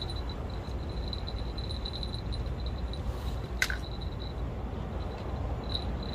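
Steady low background rumble, with a faint high, pulsing chirp over it and one sharp click about three and a half seconds in.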